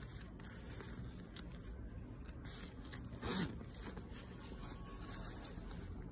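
Glossy nylon shell of a Moncler down jacket rustling and crinkling as hands handle it, with small crackles throughout and one louder rustle about three seconds in.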